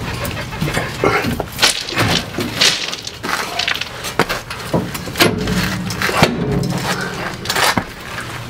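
Irregular clunks and knocks of metal as a coil-spring front strut assembly is worked by hand up into a pickup's wheel well against the suspension parts.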